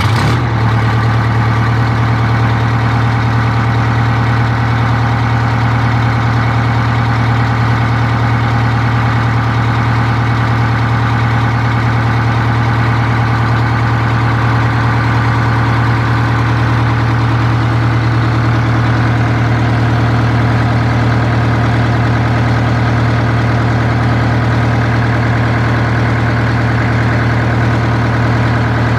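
Detroit Diesel 8V71 two-stroke V8 diesel of a 1962 GM 4106 Greyhound bus idling steadily and loud through straight-pipe exhaust without mufflers, just after starting.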